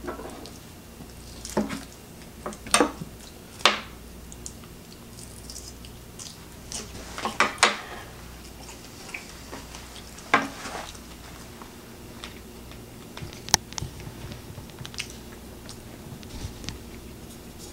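Stainless fork and knife clinking and scraping against a metal baking sheet while roast chicken is pulled apart: a scattering of sharp clicks, bunched early and again about halfway through, then sparser.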